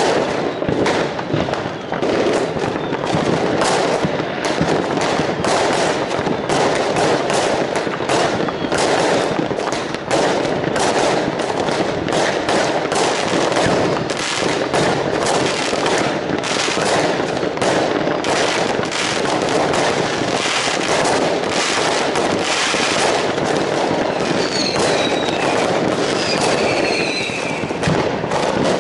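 Many consumer fireworks going off at once across the neighbourhood: a dense, continuous barrage of bangs and crackles from rockets bursting overhead. A few short whistles come in near the end.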